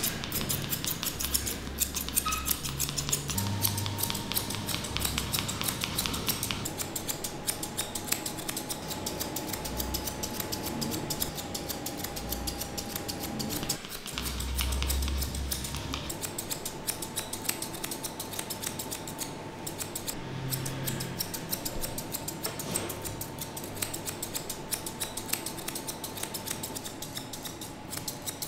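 Steel grooming scissors snipping through a Pomeranian's thick coat, a steady run of quick, crisp metal clicks.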